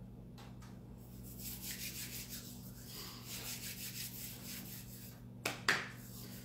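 Hands rubbed rapidly together, palm against palm, for several seconds, then two quick sharp claps near the end.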